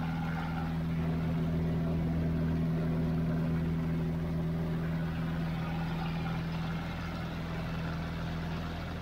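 A Cassutt 111M racer's Lycoming piston engine and propeller run steadily at climb power in flight, heard from the open-air cockpit as a constant drone with rushing air. The sound eases slightly in the last couple of seconds.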